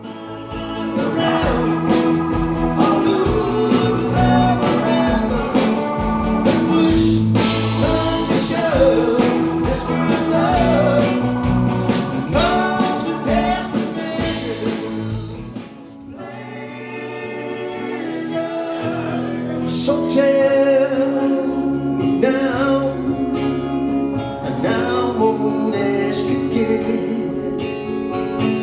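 Live band music with singing; the music drops back about halfway through, then builds again.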